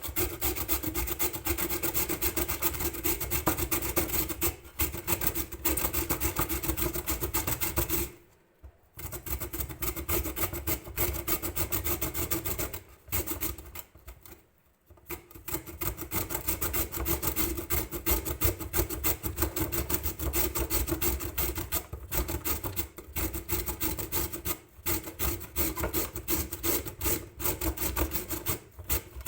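Raw beetroot being grated on a hand grater: quick, steady back-and-forth grating strokes, stopping briefly twice, about a third and halfway through.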